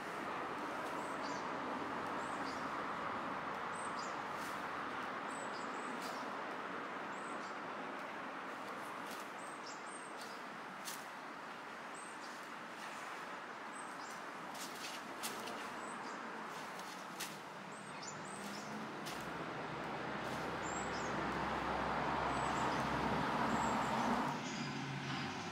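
Steady outdoor background noise with small, high bird chirps scattered throughout. A low rumble swells near the end and drops off suddenly.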